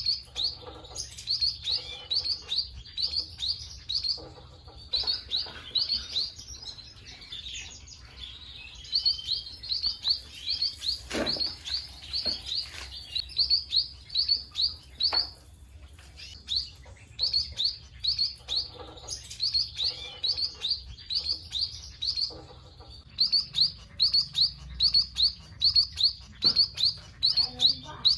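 Munias (emprit) chirping in quick runs of short, high notes, about three to four a second, with brief pauses between runs. This is a lure call used to draw wild munias in.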